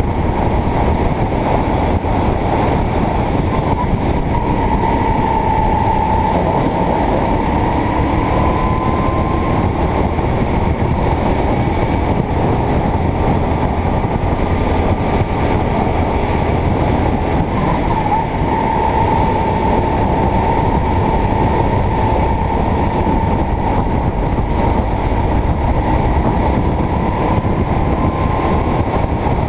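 Onboard sound of a Sodi racing kart's four-stroke engine running hard at racing speed over a dense rumble, its pitch dipping twice, about 5 and 18 seconds in, as the kart slows for bends, then climbing again.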